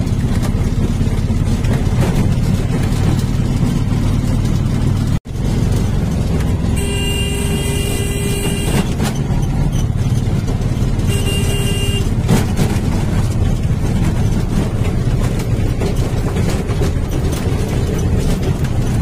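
Engine of a moving vehicle running steadily, with its horn sounded twice: a blast of about two seconds some seven seconds in, then a shorter one about two seconds later. The sound drops out for an instant about five seconds in.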